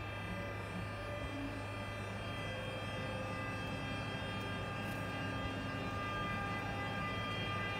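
Bombardier Traxx F160 AC3 (class 187) electric locomotive pulling away slowly with its train: a steady low hum and several high whining tones from the traction equipment, slowly growing louder as it approaches.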